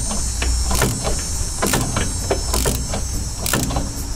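Hand ratchet clicking as it turns out a loosened wheel bearing hub bolt, with a short burst of clicks about once a second on each stroke, over a steady low hum.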